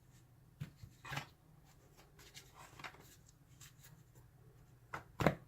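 Faint, scattered clicks and light scrapes of a lock and small metal tools being handled, with a sharper knock about five seconds in.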